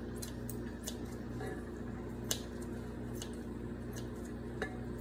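Kitchen scissors snipping through raw chicken breast: scattered soft clicks of the blades closing, the sharpest a little after two seconds in and near the end, over a steady electrical hum.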